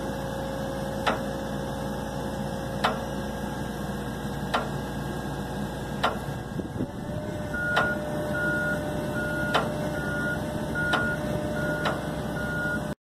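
A John Deere excavator's diesel engine running steadily while it holds a suspended load, with sharp clicks about every second and a half. About halfway through, a backup alarm starts beeping at an even pace, about two beeps a second.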